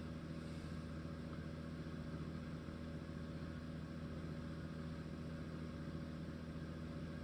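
Room exhaust fan running with a steady, even hum.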